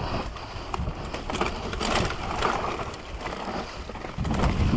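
Mountain bike riding fast down a dirt singletrack: knobby tyres rolling over dirt and roots, with the chain and frame rattling in many quick clicks. A low rumble of wind on the microphone grows louder near the end.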